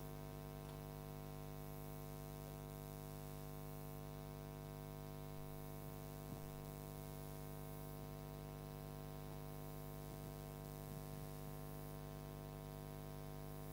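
Faint, steady electrical hum of a sound system.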